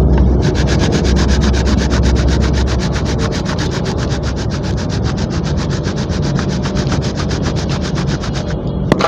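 Dry gritty cement crumbling and grinding between bare hands in a steel tub: a loud, fast, even rasping crunch. A single sharp crack near the end as a chunk snaps.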